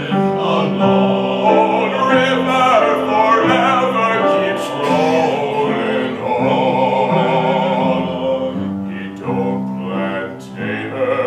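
Men's vocal quartet (two tenors, baritone and bass) singing long held chords in close harmony. The chords change every second or so, and the upper voices waver in vibrato about two-thirds of the way through.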